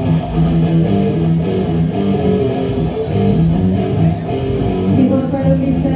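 Amplified electric guitar playing sustained chords and notes through the PA.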